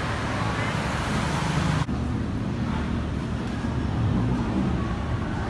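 Steady road-traffic noise, a low rumble with hiss. About two seconds in it cuts off abruptly to a duller low rumble without the hiss.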